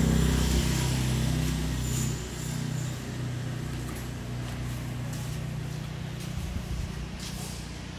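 An engine running steadily, louder for the first two seconds, then dropping and running on more quietly, with a few faint clicks near the end.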